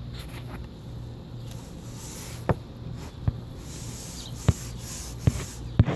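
Hand scrubbing a greasy pressboard ceiling fan blade, faint rubbing noise broken by five sharp knocks as the blade is handled, over a steady low hum.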